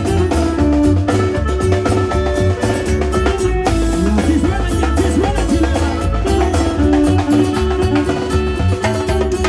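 Band music for a chilena, the Oaxacan dance: a steady bass and drum beat under held melody notes, with a brief run of wavering melody notes about four seconds in.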